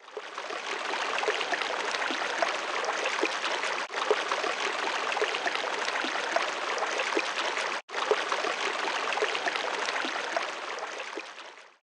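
Running water, a steady bubbling rush with many small splashes, broken twice by very short gaps about four seconds apart and stopping just before the end.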